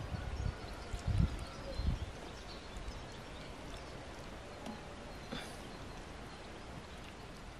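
A thin stream of water poured from an enamel kettle into a clay pot, falling onto the sorrel leaves covering the dolma, heard as a faint steady trickle. A few low thumps come in the first two seconds, with faint bird chirps in the background.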